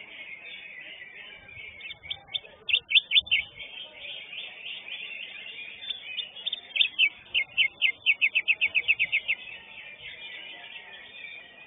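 Cucak hijau (greater green leafbird) singing: a short cluster of sharp, loud notes about two seconds in, then a fast run of about a dozen repeated notes, roughly five a second, around the middle. Underneath is a steady high chatter of other birds singing.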